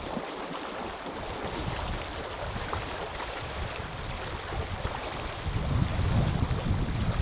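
Steady rushing of river water, with gusts of wind buffeting the microphone in low rumbles that grow stronger near the end.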